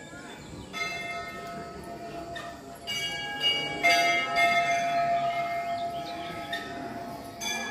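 Temple bells struck several times, each strike leaving a long ringing tone that overlaps the next and slowly fades.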